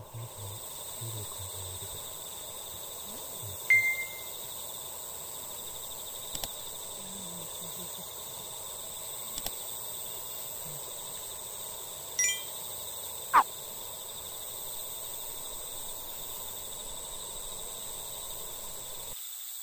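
Evening outdoor ambience with a steady high-pitched insect drone. A few short clinks and ticks stand out: the loudest, about four seconds in, rings briefly, and a sharp tick comes near thirteen seconds.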